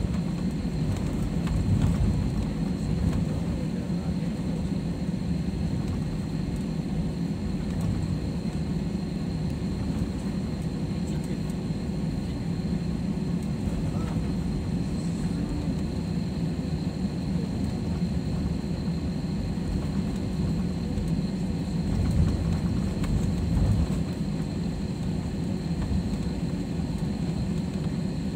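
Jet airliner's engines and cabin noise heard from inside the cabin as the plane taxis on the ground: a steady low rumble with a faint steady hum over it.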